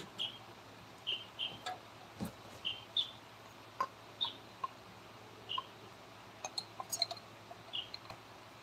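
A small bird chirping: short, high chirps about once a second, often in pairs, with a few light clicks in between.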